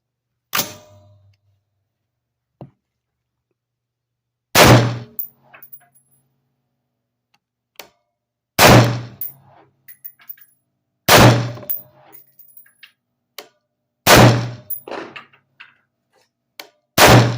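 AR-15 rifle fired five times in slow, aimed single shots about three to four seconds apart, each a loud sharp crack with a short echo, followed by light metallic clinks. A quieter sharp knock comes about half a second in, before the first shot.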